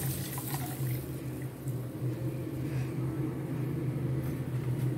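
Milk pouring in a stream into a kadai and splashing, tapering off about two seconds in, over a steady low hum.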